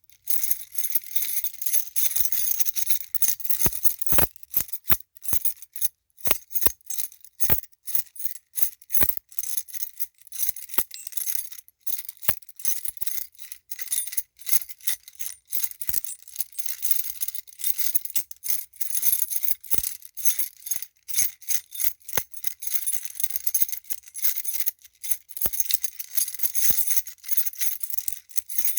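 A bunch of metal keys on a key ring jangling continuously, with rapid, irregular clinks and jingles.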